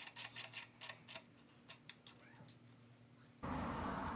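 Hand ratchet wrench clicking quickly, about five or six clicks a second, as a bolt is run into the forward-control mounting plate, then a few scattered clicks. A steady low hiss comes in near the end.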